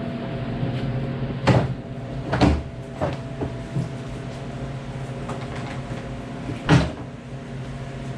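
The front clip (plastic front body panel) of a Maverick Trail being worked loose and lifted off, giving several knocks and clatters, the loudest about a second and a half in, two and a half seconds in and near the end. A steady hum runs underneath.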